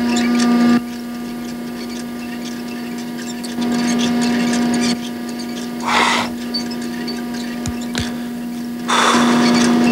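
A steady electric hum that steps louder and softer, with two short whooshing swells of noise about six and nine seconds in.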